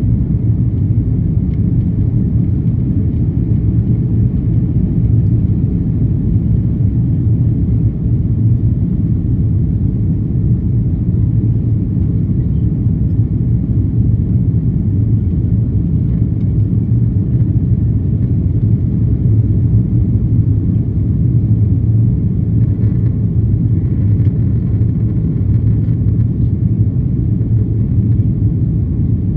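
Steady low rumble of engine and airflow noise heard inside the cabin of a Turkish Airlines Airbus airliner in flight after take-off.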